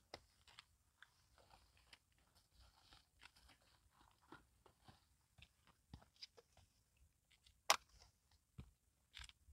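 Black-and-white cat eating red sausage cat treats: faint, irregular clicks of chewing as it gulps the pieces down barely chewed. One sharper, louder click about three quarters of the way through.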